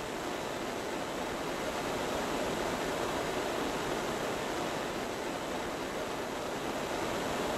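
MAP gas torch flame burning with a steady hiss, heating stainless steel plates to melt the tin-silver solder.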